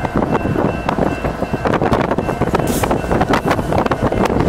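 Several BNSF diesel locomotives rolling slowly past at the head of a freight train: a steady engine rumble with frequent clicks and clanks of wheels over the rails. Wind buffets the microphone, and there is a brief hiss a little past the middle.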